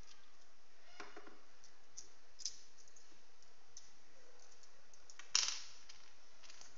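Small clicks and taps as a laser bore sighter is handled and its small parts are set down on a wooden tabletop: a short scrape about a second in, a light click, then the loudest sharp tap near the end.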